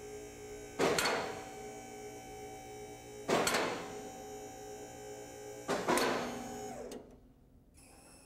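Four-post vehicle lift's electric hydraulic pump motor running with a steady hum while the lift rises, with a loud clack from the safety latches three times, about every two and a half seconds. The motor stops about seven seconds in.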